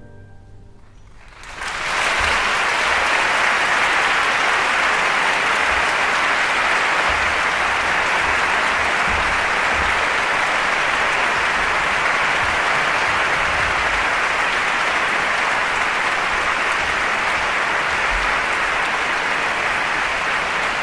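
A concert audience applauding: after a brief hush as the orchestra's final chord dies away, the clapping breaks out about a second and a half in and carries on steadily and densely.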